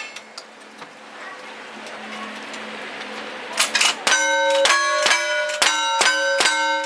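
Rapid gunshots at steel targets, each shot followed by the clang of a steel plate ringing. They start about four seconds in and come at about two a second.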